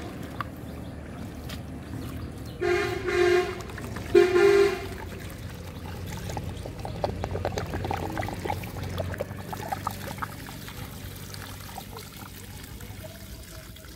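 A horn beeps three short times, a few seconds in; these are the loudest sounds. Then water pours and splashes out of the mouth of an earthenware pot fish trap as it is tipped to drain it.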